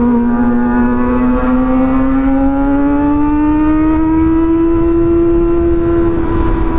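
Honda CBR 250 sport bike with an open (brong) exhaust accelerating hard in fourth gear. Its engine note climbs steadily in pitch, then levels off near the end, over wind and road rumble.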